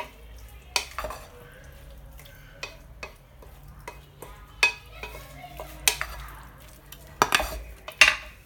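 Wooden spoon stirring a dressed broccoli and tomato salad in a glass bowl: soft rustling of the salad with irregular clicks and knocks of the spoon against the glass, the loudest near the end.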